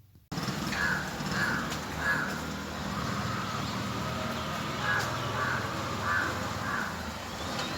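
A bird giving short harsh caw-like calls, evenly spaced about two-thirds of a second apart: three calls, a pause of a couple of seconds, then four more, over a steady background noise.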